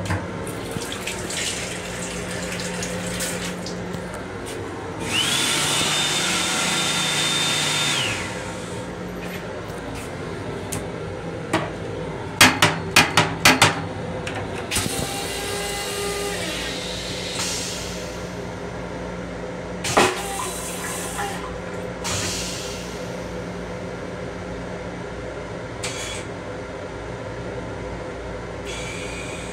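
Sink-unit hand dryer in an M7 commuter-train restroom runs for about three seconds, its whine rising as it spins up and then holding before it cuts off. A quick run of five sharp knocks follows, then spells of running water, over the steady low hum of the moving train.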